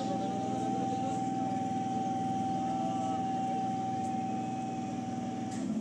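Electric multiple unit local train standing at the platform, its onboard equipment humming with a steady whine that cuts off shortly before the end.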